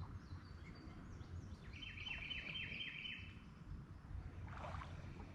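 Faint bird song: a quick run of about eight repeated chirping notes about two seconds in, with a few fainter high notes before it, over a low steady background rumble.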